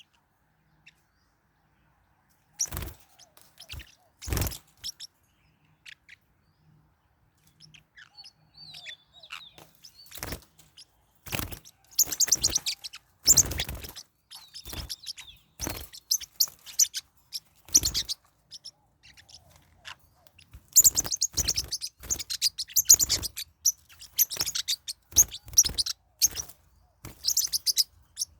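Forpus parrotlets giving short, shrill chirps and squawks in bursts. The calls are sparse at first and come in busy runs through the second half.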